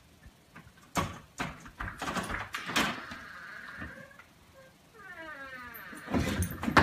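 Cat jumping at a door and batting its lever handle: a series of knocks and rattles of the handle and latch. The door comes open, with louder knocks near the end.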